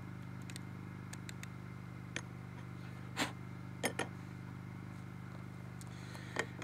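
A few light clicks and taps as a powder charge is tipped from a small plastic measure into a tiny cannon and the little cannon is set down on a tile tabletop, the loudest taps about three to four seconds in. A steady low hum runs underneath.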